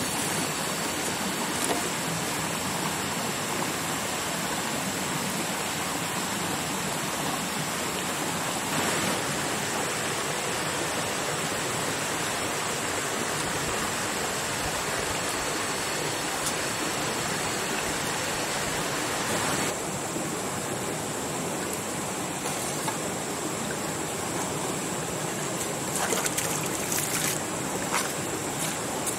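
Steady rush of running water from a stream, with a few light clicks near the end.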